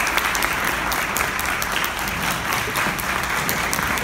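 Audience applauding: a steady round of many hands clapping at once.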